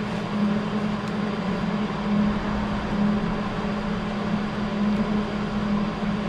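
Steady mechanical drone of a running machine, with a low hum that throbs a little more than once a second.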